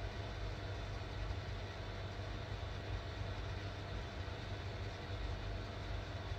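A steady low rumble with an even hiss over it, unchanging throughout.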